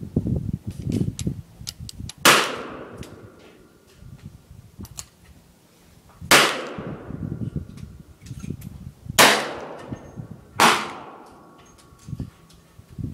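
Taurus .357 Magnum revolver firing four single shots at uneven intervals, each report followed by a fading echo. A low rumble comes before the first shot.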